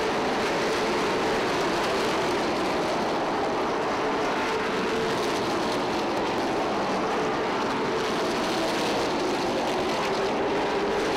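A pack of pavement late model race cars' V8 engines running at speed around a short oval, a steady, unbroken engine drone with no single car standing out.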